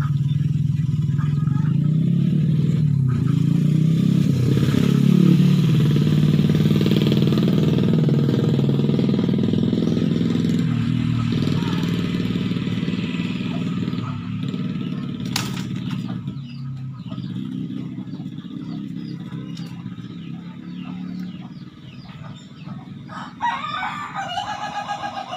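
A motor vehicle's engine runs close by, its pitch rising and falling in the first few seconds, then slowly fading away. Near the end a rooster crows once, for about two seconds.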